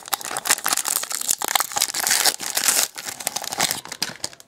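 Wrapper of a 2016 Donruss football card pack crinkling and tearing as it is opened by hand, fading out near the end.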